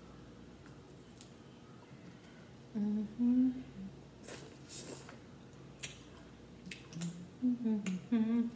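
A woman humming in short pitched phrases, about three seconds in and again near the end, while picking crab legs apart, with a few faint clicks and crackles of shell between the hums.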